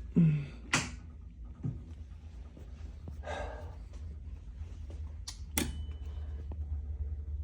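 Pinball machine just switched on, its transformer giving a steady low hum, with a thump at power-up and a few sharp clicks and knocks while it boots.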